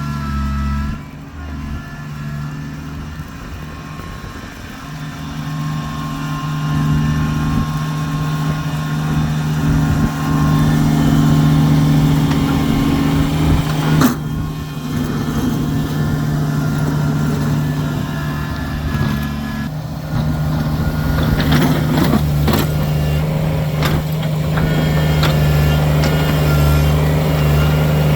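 Kubota tractor engine running steadily while plowing snow, getting louder from about six seconds in. A sharp knock about fourteen seconds in and a few clicks later.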